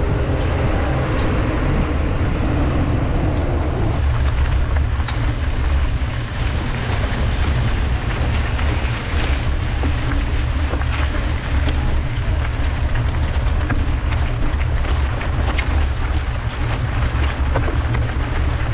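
Mountain bike ridden hard in a race, heard from the rider's camera: a steady heavy rumble of wind buffeting the microphone over rolling tyre noise, with many short rattling clicks from the bike over the second half.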